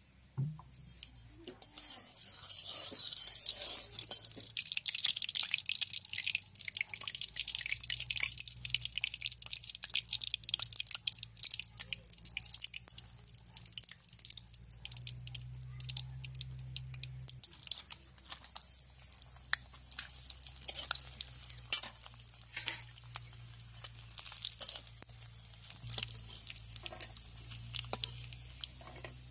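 Hot oil sizzling and crackling steadily in a kadai as snacks fry in it, starting about two seconds in.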